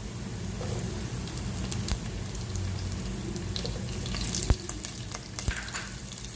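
Chopped garlic and green chillies frying in hot oil in a pan, crackling steadily, with scattered pops and a sharp knock of a utensil against the pan about four and a half seconds in.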